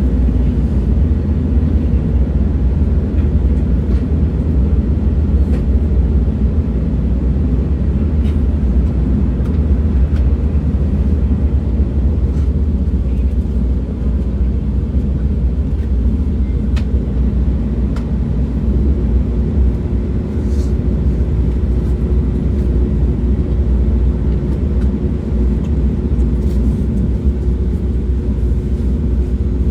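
Train running at steady speed: a continuous low rumble with a few faint ticks. A faint steady hum joins about two-thirds of the way through.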